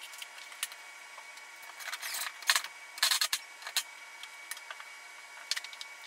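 Light handling noises: scattered small clicks and a few brief scrapes, the most at about two seconds and three seconds in, over a faint steady hiss.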